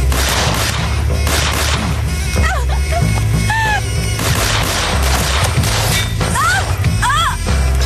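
Repeated gunshots and impacts in a shootout, over a low music drone, with a woman crying out in short, wavering cries twice.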